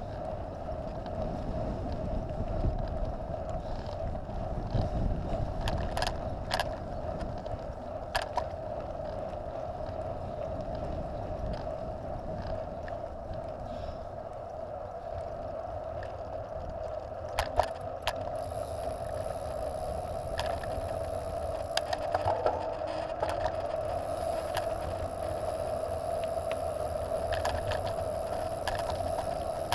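Trek Top Fuel 9.8 mountain bike rolling fast downhill on asphalt: a steady buzz from the moving bike with wind rumble on the microphone, and a few sharp clicks and rattles from bumps. A faint high whine joins about two-thirds of the way in.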